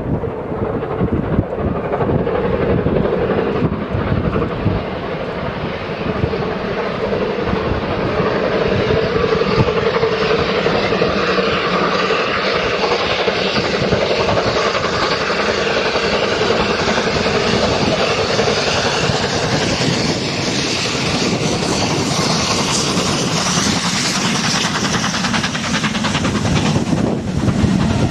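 Steam locomotive working hard as it hauls a long passenger train past, its exhaust beating and the coaches rumbling over the rails.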